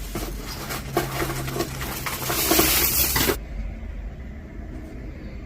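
Costume jewelry clicking and rattling against itself, with a rustling hiss, as pieces are rummaged through in a box; it stops suddenly about three and a half seconds in.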